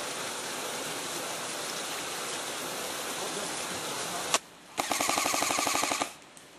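A steady hiss, then a brief drop and, a little under five seconds in, an airsoft electric gun (AEG) firing a full-auto burst of about a second and a quarter: rapid, even clicks of about twenty shots a second.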